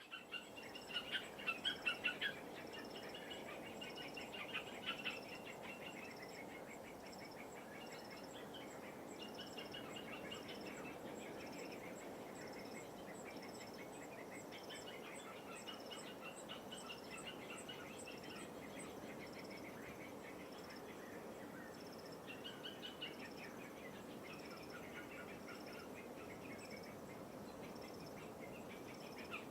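Light waves washing on the shore, with birds calling in quick trilled phrases over them, loudest in the first few seconds, and a high chirp repeating steadily about once a second.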